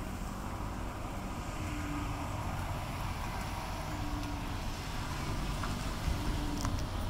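Steady low rumble with an even hiss over it, and a few faint clicks near the end.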